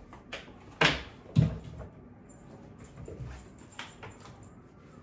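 Handbag being searched by hand: scattered handling knocks and clicks, with two louder thumps about a second in.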